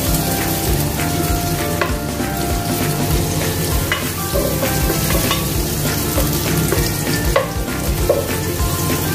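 Chopped garlic and onion sizzling in butter in a nonstick pot while a wooden spatula stirs them, scraping the pot's bottom with scattered light clicks.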